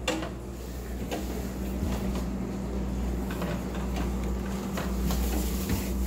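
Top-freezer refrigerator's fresh-food door being opened and the compartment handled, a few faint knocks and rattles over a steady low hum.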